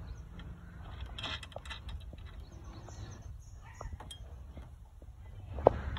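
Scattered light clicks and taps of hands fitting bolts and a Bajaj Dominar 400 top rack onto a motorcycle's tail section, with one sharper click near the end, over a steady low rumble.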